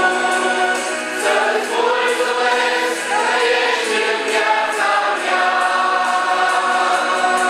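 A mixed group of men, women and children singing a worship song in Romanian together.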